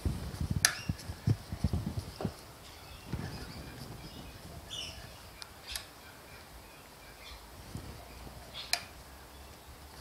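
Handling noise from gloved hands fitting return springs onto an SU carburettor's linkage: a cluster of light knocks and sharp metal clicks in the first two seconds or so, then a few scattered sharp clicks.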